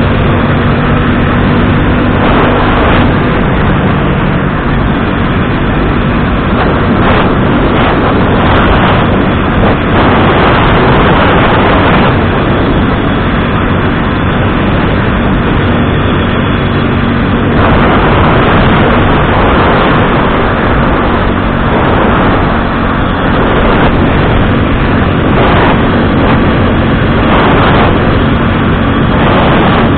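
Motorcycle engine running steadily at cruising speed, heard under a loud rush of wind and road noise that swells now and then.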